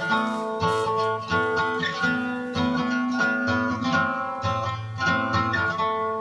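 Background music: acoustic guitar playing plucked notes in an even rhythm, a little under two a second.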